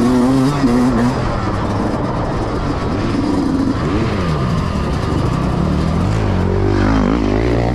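Yamaha YZ125X 125 cc two-stroke dirt bike engine being ridden under throttle, its pitch dropping and climbing again twice as the rider rolls off and gets back on the gas.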